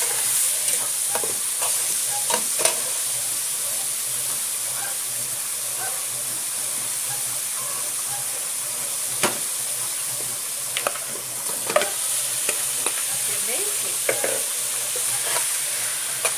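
Chopped tomato, onion, bell pepper and garlic sizzling steadily in hot oil in an aluminium pot. A metal spoon stirs and scrapes through them, with sharp clicks where it knocks against the pot now and then.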